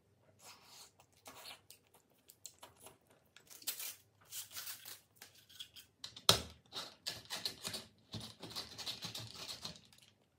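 Soft rustling and tearing sounds, then a thick bubble-tea straw punched through the cup's sealed plastic lid with one sharp pop about six seconds in, followed by slurping milk tea through the straw.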